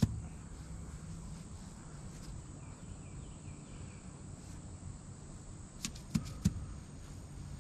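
Rural outdoor ambience: insects chirring steadily, with three sharp knocks about six seconds in.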